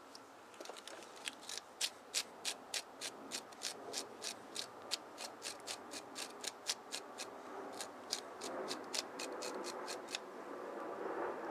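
Small brush scrubbed briskly back and forth over a small carburetor part, about four quick strokes a second, turning softer and less regular near the end.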